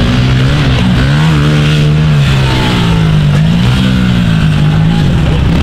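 Small pit bike engine revving up and down over and over as the rider opens and shuts the throttle around the dirt track.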